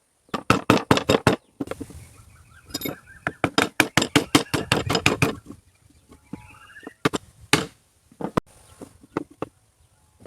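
Rapid runs of hammer blows on wood: a quick burst of about eight strikes, a short pause, about a dozen more, then a few single blows spaced further apart.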